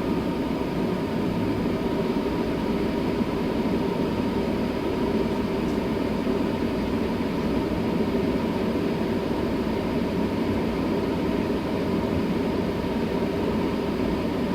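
10-inch inline exhaust fan running steadily near full speed, pushing air out through the duct's roof-cap vent: an even rush of air with a faint hum under it.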